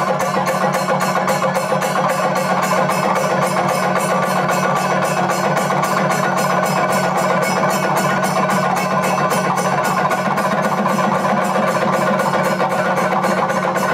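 Ensemble of chenda drums beaten with sticks, together with ilathalam hand cymbals, playing a loud, dense, fast and even rhythm of Kerala temple percussion.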